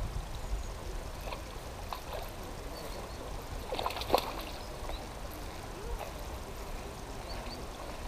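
A hooked salmon trout splashing and thrashing at the water's surface once, briefly, about four seconds in, over a steady low background rumble.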